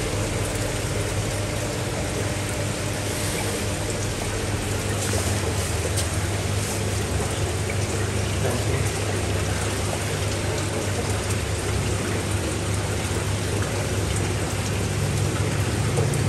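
Steady rush of running, splashing water with a low electrical pump hum under it, typical of water circulating through fish tanks; a second low hum comes in near the end.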